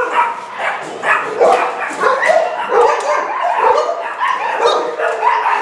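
Many shelter dogs barking and yipping at once from their kennel runs, a continuous overlapping din with no break.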